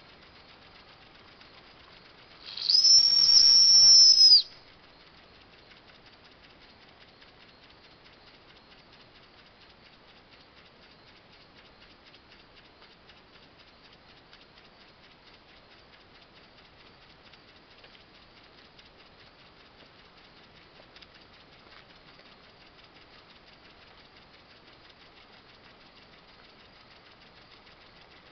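Weeden No. 123 toy steam engine's boiler whistle blown once: a shrill, steady whistle lasting about two seconds, starting about two and a half seconds in. Before and after it, the little engine runs on faintly with a rapid, even beat.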